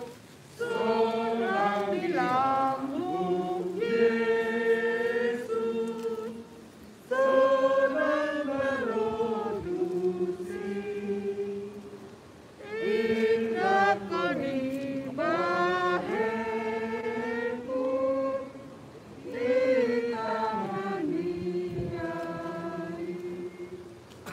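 A small congregation singing a hymn together, with long held notes in phrases a few seconds long and brief pauses for breath between them.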